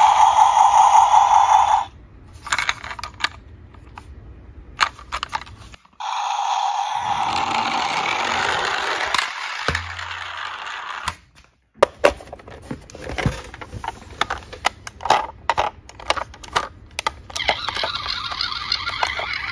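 Battery-powered toy police truck's electronic siren wailing, cutting off about two seconds in. Then clicks and scrapes of the plastic toy being handled and rolled, and a toy ambulance's electronic siren starting near the end.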